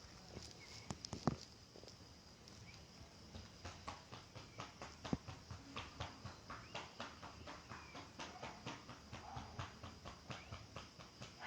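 A run of light, regular knocks or taps, about three a second, after a few sharper clicks near the start, over a steady high trill of crickets.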